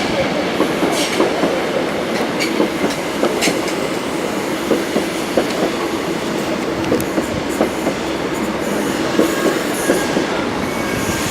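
Mk3 coaches of an intercity set, propelled by a Class 90 electric locomotive, rolling slowly into the platform, wheels clicking over rail joints with a few faint high squeals.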